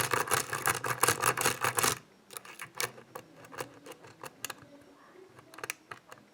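Lock pick hook scraping and tapping against the pin stacks inside a pin-tumbler lock held under tension: a quick run of clicks for about two seconds, then sparse, light single clicks. The pins are being checked one by one to see whether they are set at the correct height.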